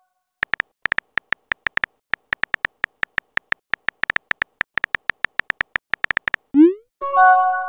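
Simulated phone keyboard clicks from a texting-story app: a fast, irregular run of short ticks as a message is typed. Near the end come a quick rising whoosh as the message is sent, then a pitched chime.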